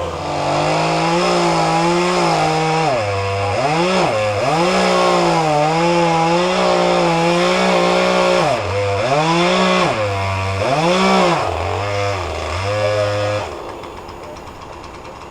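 Chainsaw running at high speed as it cuts, its pitch repeatedly sagging and picking back up several times, then stopping about thirteen seconds in. This is a backup saw that is having some issues.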